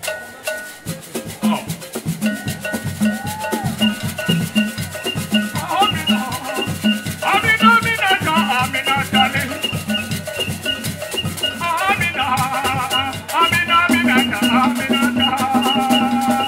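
Ben skin music from Cameroon's West Region: wooden hand drums beating a steady, quick rhythm under continuous shaker rattles, with voices singing in from about seven seconds in.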